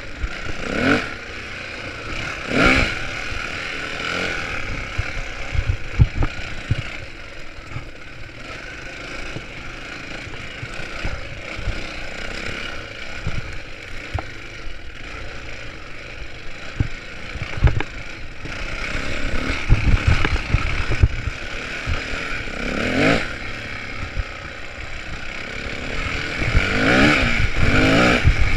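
2003 Yamaha WR450F's single-cylinder four-stroke engine on its stock exhaust, idling with quick throttle blips: short rising revs about a second in and near three seconds, then a longer stretch of steady running, and more blips late on.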